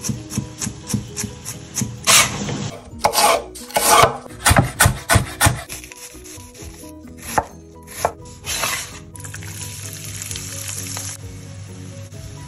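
Chef's knife chopping carrot on a wooden cutting board, about four quick even strokes a second, then heavier, irregular strikes as it cuts through an onion. About nine seconds in, a steady sizzle of diced vegetables frying in a pan takes over.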